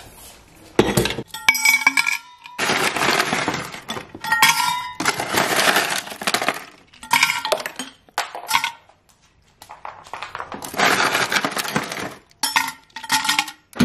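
Ice cubes rattling and clinking as they are scooped from a freezer ice bin and dropped into a stainless-steel water bottle. The sound comes in several rattling bursts of a second or two, broken by sharp clinks that ring briefly.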